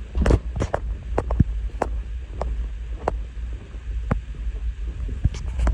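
Strong wind buffeting the microphone as a steady low rumble, with scattered sharp ticks a few times a second.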